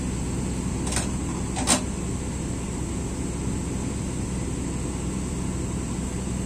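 Steady low drone of running machinery, with two sharp clicks about a second apart early on, the second a little louder.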